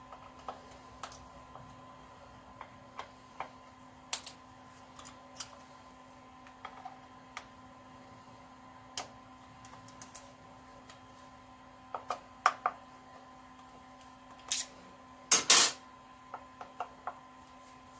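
Light, irregular metallic clicks and taps of a hand driver and wrench working the screws of a Harley's chrome primary cover, with a louder short clatter of metal about three-quarters of the way through.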